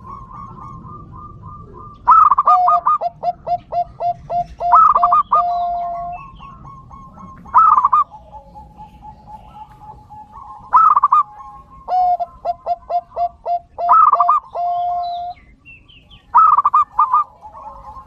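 Dove singing: six repeated cooing phrases, each opening with a few loud notes and running into a quick series of short lower coos, with a steady whistle-like tone between the phrases.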